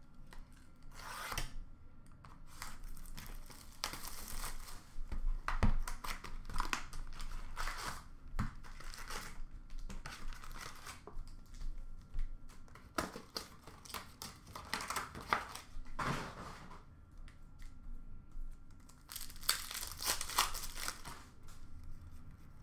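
Foil wrapper of a 2020-21 Upper Deck Metal Universe hockey card pack being torn open and crinkled by hand, in irregular rustles and rips, along with cards being handled and sorted.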